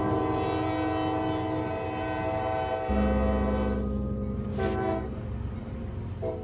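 Diesel locomotive air horn sounding over the low rumble of a train: a long blast that ends about three seconds in, then a shorter blast and a brief toot near the end.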